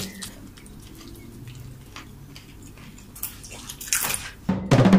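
Fork mashing and stirring avocado in a bowl: faint, irregular clicks and taps during a break in the music. Percussive music comes back in near the end.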